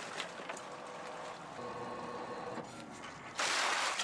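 Oyster harvesting machinery running steadily as ropes of farmed oysters are hauled up onto the boat. About three and a half seconds in, a loud rush of water and shells lasting about half a second as a cluster of oysters drops off the rope.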